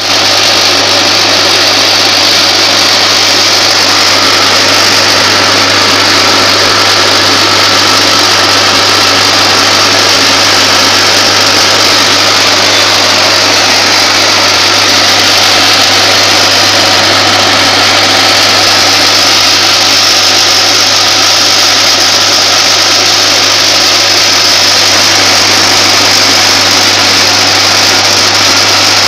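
Vibratory bowl feeder running with a steady low hum from its drive, under a constant dense rattle of steel cylindrical blanks jostling along the steel bowl's spiral track.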